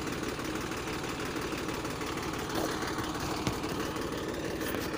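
Tractor's diesel engine running steadily with a fast, even throb while pulling a tined cultivator through the soil.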